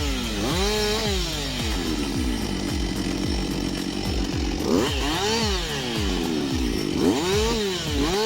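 Chainsaw engine running at high revs and cutting wood, its pitch climbing and sagging several times as it revs and takes the load of the cut, holding lower and steadier for a few seconds in the middle.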